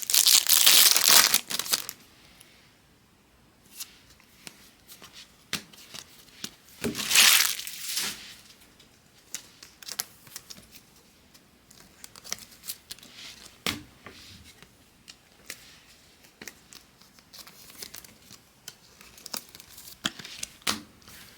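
A trading card pack's wrapper torn open, in a loud burst at the start and another about seven seconds in, followed by small clicks and ticks as the cards are handled and sorted.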